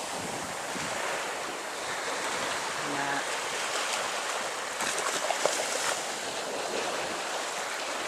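Small surf washing up on a sandy shore, with wind buffeting the microphone, most noticeably a little after the midpoint.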